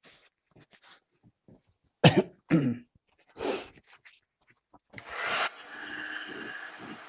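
A man coughs twice, followed by a breathy throat-clearing. About five seconds in, a hot-air gun switches on and blows with a steady hiss and a faint fan whine, heating the deformed plastic bumper part to bend it back into shape.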